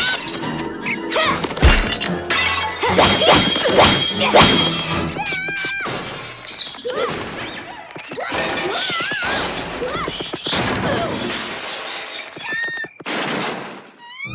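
Cartoon slapstick sound effects over busy music: repeated crashes and breaking-glass smashes with short high squeals scattered throughout.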